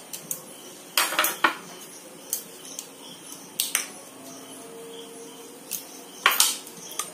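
Metal spoon and spatula clinking against a metal cooking pan: scattered sharp clinks, with louder clatters about a second in and again near the end.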